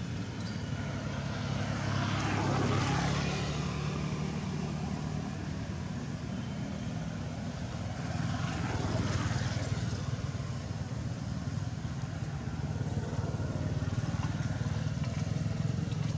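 Motor vehicle engines running, a steady low drone that swells twice as vehicles pass, about two seconds in and again about eight seconds in.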